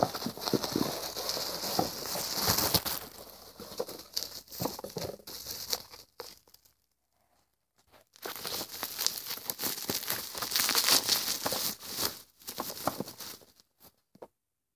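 Packaging being unwrapped by hand: bubble wrap and plastic crinkling and rustling, with small tearing sounds. It stops for a stretch of near silence a little before halfway through and again near the end.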